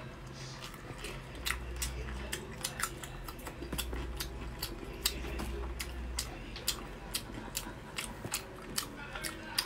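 Chewing of soft, fatty braised pork belly: irregular wet smacking clicks from the mouth, a few each second.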